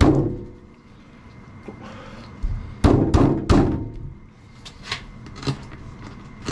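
Heavy thunks and knocks of butchering work on a kitchen counter as a large soft-shelled turtle is cut up. There is a loud thunk at the start, three heavy ones in quick succession about three seconds in, and lighter knocks near the end.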